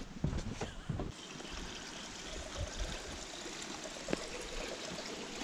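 A few footfalls on wooden decking, then a steady rush of running water like a small forest stream, with faint scuffs of steps on a log-round path.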